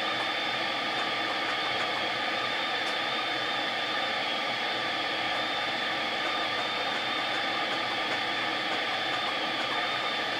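Steady static hiss from an AM tube radio's speaker, tuned off station, with a few faint steady whistles in the noise.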